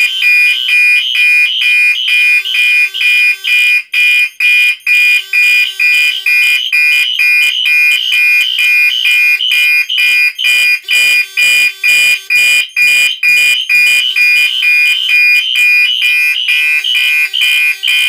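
Fire alarm horns, a Wheelock NS-4 and a Gentex SHG, sounding a shrill electronic tone in rapid, even pulses. The pulsing is the suppression system's pre-discharge countdown signal before agent release.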